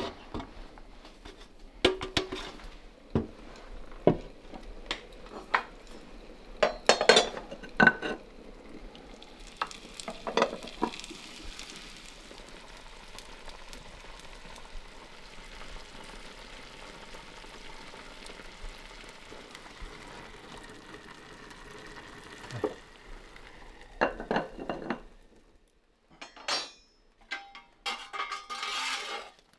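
Cooking at a pan: a utensil stirs, knocking and clinking against the pan, and food sizzles steadily through the middle stretch. Near the end the sizzle is gone and a few clinks and knocks come after a brief quiet.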